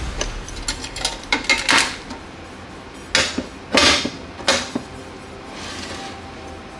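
Sheet-steel case of an antique Optimus 111B camping stove being handled: light metal clicks and rattles over the first two seconds, then three louder clanks about half a second apart as the hinged lid is shut and the box is moved about.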